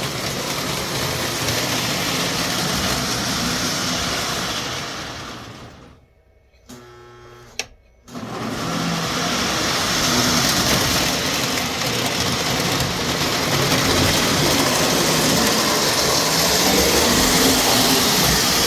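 O gauge model locomotive running at full throttle: a steady motor and wheel noise that cuts out for about two seconds midway, with a short tone in the gap, then starts again. The engine is running poorly, a trouble the owner later puts down to dirty wheels and track.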